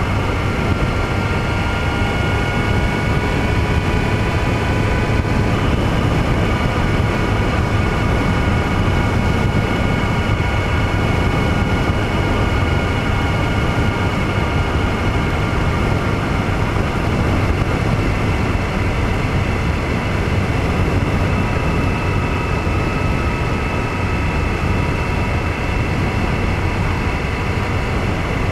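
Steady engine drone and rushing wind noise from a vehicle cruising along an open road, with a faint whine that drifts slowly in pitch.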